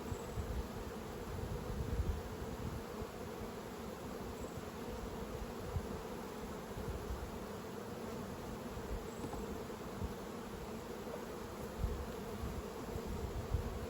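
Honeybees buzzing steadily around an opened hive, an even hum from the colony on the frames being worked.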